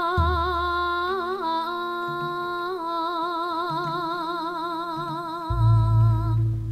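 A Javanese pesinden (female gamelan singer) sings a long, held line into a microphone with a strong, wavering vibrato. Low instrumental notes sound beneath her, and a deep low note swells in loudly near the end.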